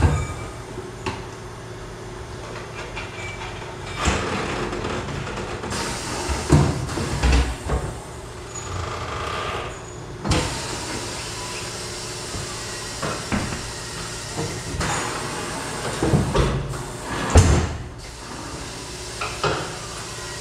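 Knocks, thumps and clatter of a tyre and alloy wheel being handled by hand beside a tyre changer, over a steady background hum.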